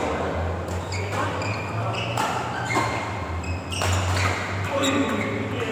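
Badminton rally: rackets strike the shuttlecock sharply several times, with short high squeaks from shoes on the court floor between the hits. A steady low hum and faint voices carry through the echoing hall.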